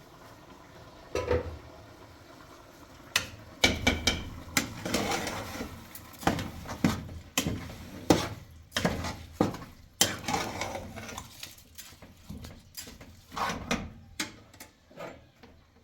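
Pots, dishes and utensils clattering as they are handled: irregular knocks and clinks, one about a second in, then a busy run of them from about three seconds on.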